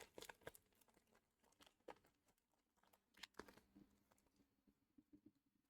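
Near silence with a few faint crinkles and soft taps of Pokémon trading cards and a foil booster pack being handled, mostly near the start and just past three seconds in.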